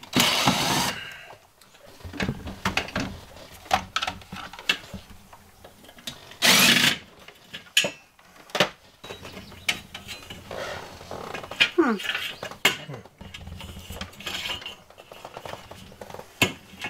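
Cordless drill-driver running in two short bursts of about a second each, one just after the start and one about six and a half seconds in, driving fasteners into the CB radio mount. Between the bursts come many short clicks and rattles of tools and wiring being handled.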